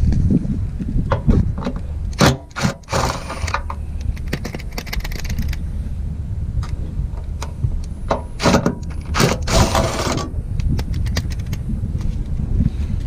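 Hand tools loosening the fender bolts on a car: irregular metal clicks and short runs of ratchet-like clicking and scraping, twice in denser bursts, over a steady low rumble.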